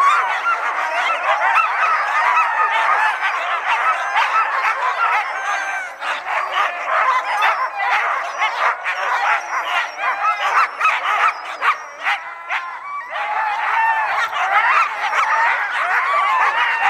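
Many Alaskan huskies in sled-team harness barking, yelping and howling together in a loud, dense chorus, the excited din of sled dogs hooked up before a run. The chorus thins briefly about twelve seconds in, then swells again.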